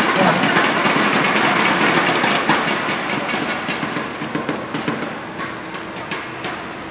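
Loud crowd din echoing in a large hall, fading gradually, with sharp clicks of rackets striking a shuttlecock during a badminton rally.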